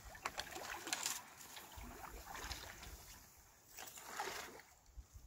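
Kayak paddle strokes splashing and dripping in a narrow marsh channel, coming in three bursts, with dry shrubs and reeds rustling as the boat and paddle brush through them.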